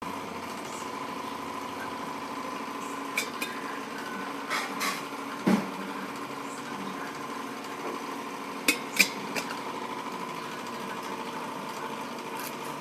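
A stainless steel kettle being handled: scattered sharp metallic clinks and knocks, the loudest two close together about nine seconds in, over a steady faint hum.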